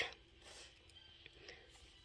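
Faint light scraping and a few soft taps as the metal slide plate of a Juki DDL-8700 industrial sewing machine is slid shut over the bobbin area.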